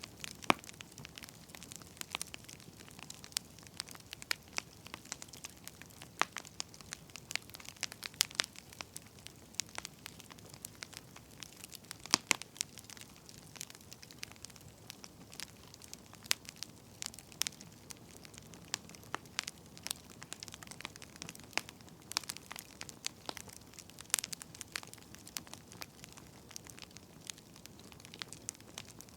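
Wood fire crackling: irregular sharp pops and snaps from burning firewood, several a second, over a faint steady hiss.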